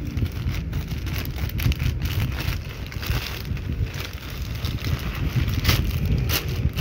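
Black plastic courier mailer crinkling and rustling with irregular crackles as it is cut and pulled open by hand, over a steady low rumble.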